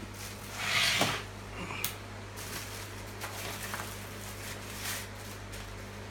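Handling noises: a short loud rustle or scrape about a second in, then scattered light clicks and rustles, over a steady electrical hum.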